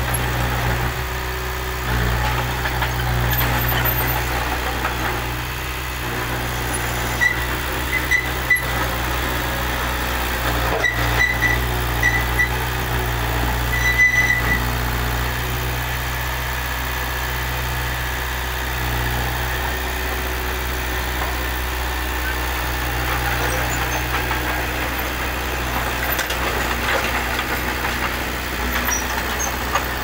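Small D20P crawler bulldozer's diesel engine running steadily with a deep hum, with a few metallic clanks from the machine as it works. Short high squeaks come and go several times between about 7 and 15 seconds in.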